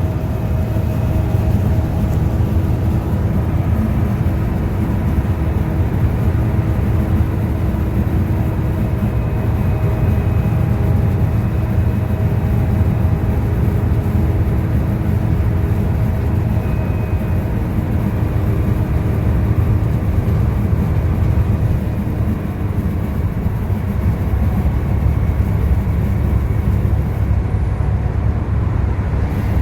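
Volvo B7TL double-decker bus's six-cylinder diesel engine running steadily under way, heard on board as a loud low rumble. Faint humming tones over it fade out about two-thirds of the way through.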